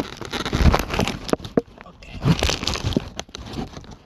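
Handling noise from a phone being positioned by hand: loud rustling and scraping close to the microphone with scattered knocks and clicks, easing off near the end.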